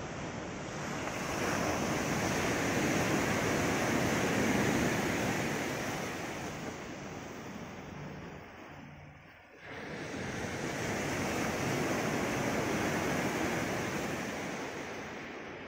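Sea surf breaking and washing in among the boulders of a rocky breakwater. It comes in two long swells of rushing water, with a brief lull about halfway through.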